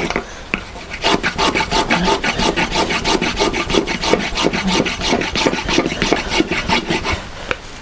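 Block plane shaving a pine dowel in quick, repeated short strokes, several a second, to take it down from 16 mm to fit a 15 mm hole.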